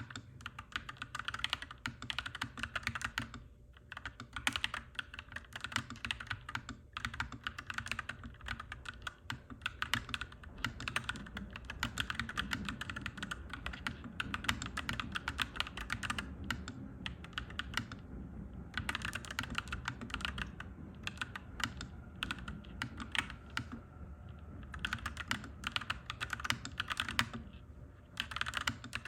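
Clacky mechanical keyboard being typed on in quick runs of keystrokes, with short pauses between bursts.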